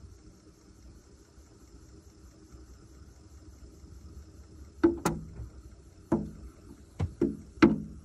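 A bird pecking on the van's roof just above the roof vent: a series of sharp, hollow knocks, about six of them, starting about five seconds in, over a faint steady hum.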